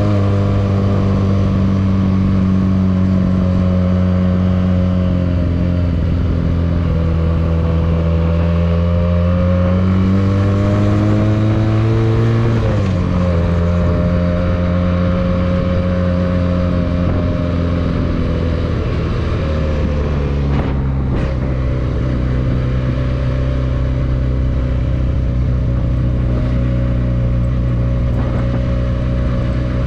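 Benelli 302S parallel-twin motorcycle engine running under way. Engine pitch climbs slowly, drops sharply about twelve seconds in as the revs fall, and steps lower again about twenty seconds in. A brief click comes shortly after.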